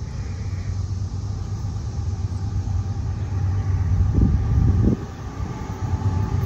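Low diesel rumble of the approaching CSX freight train's locomotives, steady and slowly growing louder. Wind buffets the microphone about four seconds in.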